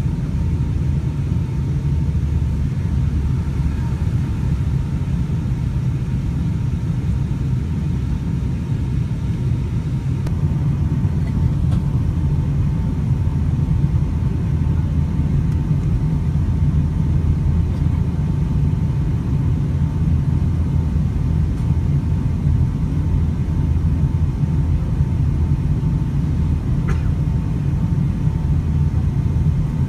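Airliner cabin noise during the descent: a steady low rumble of the jet engines and rushing air, heard inside the passenger cabin, with a faint steady whine over it.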